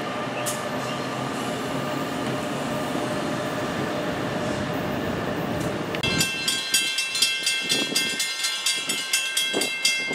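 NJ Transit ALP-46 electric locomotive pulling into the station, a steady rumble with a whine over it. About six seconds in it gives way to a railroad grade-crossing bell ringing rapidly and evenly, warning of a train.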